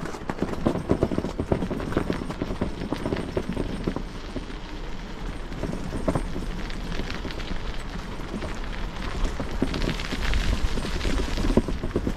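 Bicycle ridden over a rough, icy and slushy path: the tyres crackle and crunch on the ice, with a rapid run of knocks and rattles from the bike over the uneven surface. A low rumble of wind on the microphone runs underneath.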